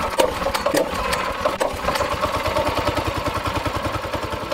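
Small single-cylinder four-stroke go-kart engine idling steadily, running on water-based personal lubricant in its crankcase instead of motor oil, not yet up to operating temperature.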